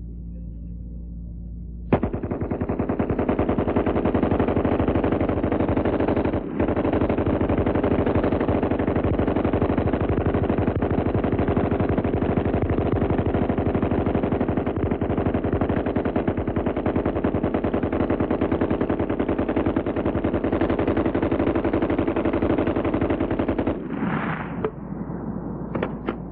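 Water-cooled Browning machine gun firing one long, sustained burst of rapid automatic fire that starts about two seconds in, falters briefly once, and stops near the end. A few last single sharp reports follow.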